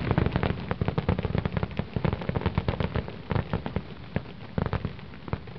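Fireworks crackling: a dense run of rapid sharp pops and snaps, many a second, growing sparser and fainter toward the end.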